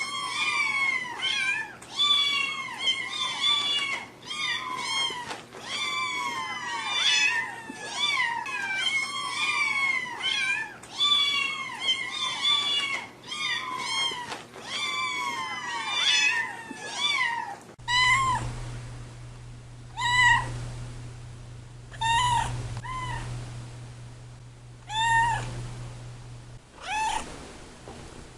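Cats meowing over and over: first a rapid run of overlapping high meows, about two a second. About 18 s in it changes to single meows every second or two, with a low steady hum underneath.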